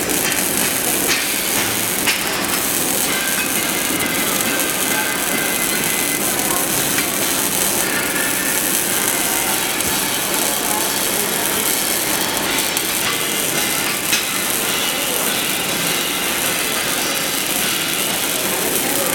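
Electric welding arc burning steadily: a continuous crackling hiss with a few sharp clicks.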